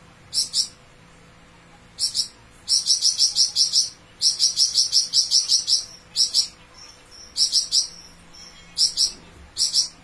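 Caged flamboyan songbird singing a long 'besetan' (rattling) phrase: sharp, high notes repeated quickly, about six a second, in short bursts, with two long runs in the middle.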